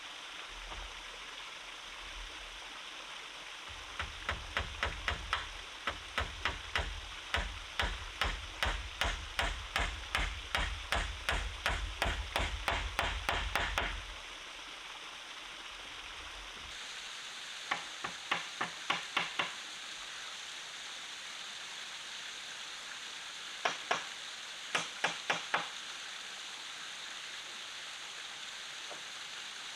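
A hand tool striking wood in steady runs of sharp blows, about two or three a second: a long run of about ten seconds, then two short runs later on. Beneath them runs the steady rush of a forest stream.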